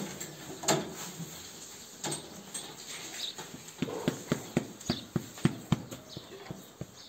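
A hand tapping and flicking a cow's bloated flank. A few single knocks come first, then from about four seconds in a fast run of sharp taps, about four a second, with a dull ring. This is percussion of a gas-filled stomach that has stopped moving (tympany).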